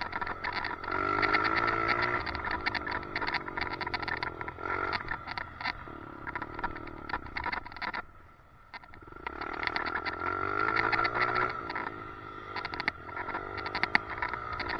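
Small off-road motorcycle engine revving up and down, with a dip where the throttle closes about two-thirds of the way in before it picks up again. Throughout there is a rapid clicking rattle, the weird noise the rider blames on the helmet's chin camera mount.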